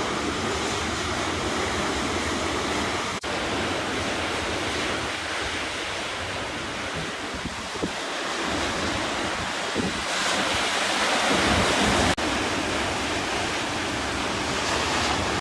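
Sea waves washing onto the beach with wind rushing over the microphone; the surf grows louder about ten seconds in.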